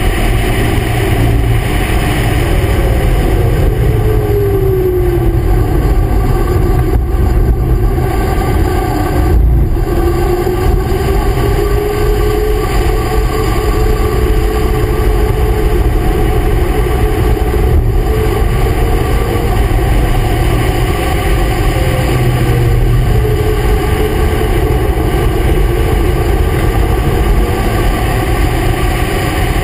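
Racing vehicle at speed on a track, heard from a camera mounted just above the road: a steady roar of wind and road noise with the engine note beneath it. The engine note drops in pitch a few seconds in, then climbs again from about ten seconds in.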